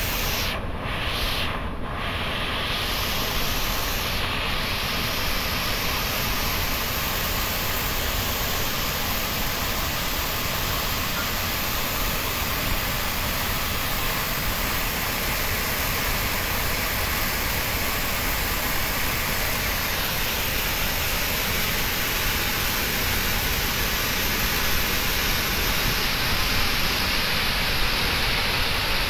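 Water jetting from an opened dam sluice valve and crashing into the river below: a steady, unbroken rush.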